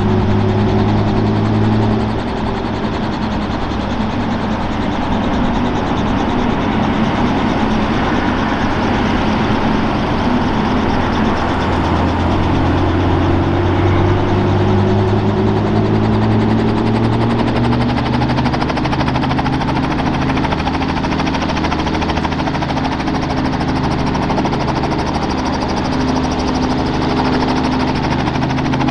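Robinson R44 Clipper II helicopter running on the ground on its Lycoming IO-540 six-cylinder engine, warming up after start. The engine note drops about two seconds in, then climbs gradually for several seconds past the middle and holds steady at the higher speed.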